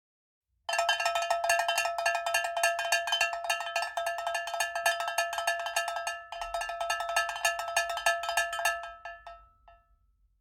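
Rapid metallic strikes, many per second, each carrying the same ringing pitch like a cowbell. They start abruptly about a second in, falter briefly past the middle, and die away near the end.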